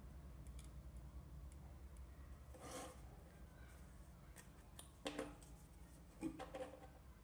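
Faint handling noise from an LED bulb in its plastic lamp holder and coil wire leads being moved: three short scrapes, about three, five and six seconds in, over a low steady hum.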